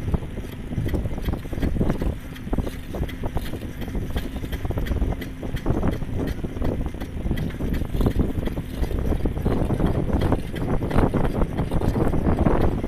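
Wind rumbling on a moving microphone, with irregular knocks and rattles from travel along a forest path.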